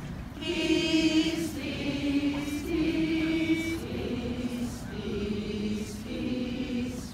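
A large crowd singing together unaccompanied, in slow phrases of long held notes, with one close voice standing out about half a second in.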